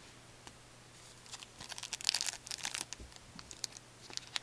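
Foil wrapper of a hockey card pack crinkling and tearing in gloved hands: clusters of sharp crackles starting just over a second in, and again near the end.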